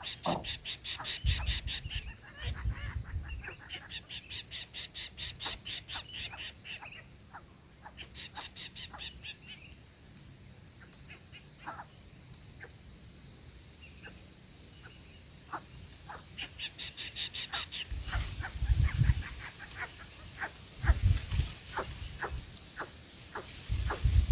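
Insects trilling steadily in a high, pulsing drone, with runs of fast clicking trills that come and go. A few low thumps are heard near the start and in the last few seconds.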